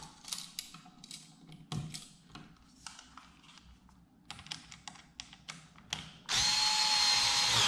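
Light clicks and scrapes of a wire being hooked onto a receptacle's terminal screw. About six seconds in, a Ryobi cordless screwdriver runs steadily for about a second and a half, driving the brass terminal screw down on the black wire, then stops.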